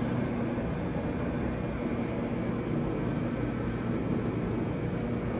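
Hobart H600 three-phase planetary mixer running in first speed, a steady even motor and gear hum.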